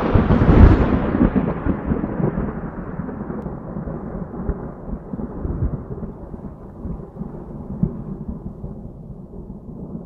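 A thunderclap rumbling. It is loudest in the first second, then rolls on as a long deep rumble that slowly fades, with a short swell about eight seconds in.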